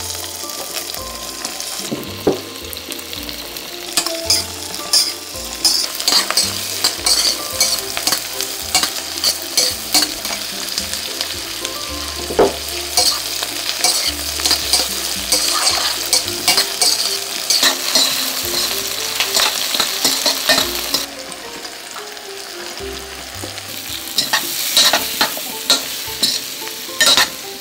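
Onion, potato and sweet pumpkin pieces sizzling as they stir-fry in hot butter and oil in a stainless steel pan. A metal spoon stirs them, with frequent clicks and scrapes against the pan.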